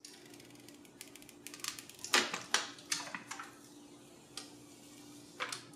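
Thin clear protective plastic film being peeled off a new iPhone XS Max: a run of soft crinkles and clicks over about two seconds, then a couple of single clicks near the end, over a faint steady hum.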